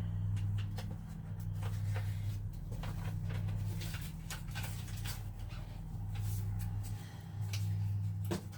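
Steady low electrical-sounding hum with scattered light clicks, taps and rustles of work close by.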